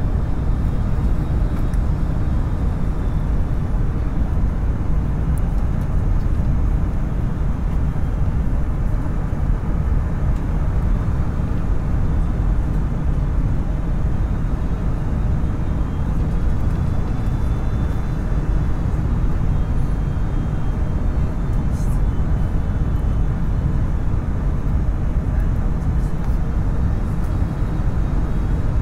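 Steady airliner cabin noise on the landing approach: engine and airflow roar, heaviest in the low end, with a faint high whine above it.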